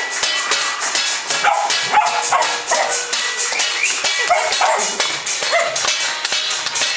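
Many people clapping and banging fast and steadily, with a dog barking repeatedly over the din.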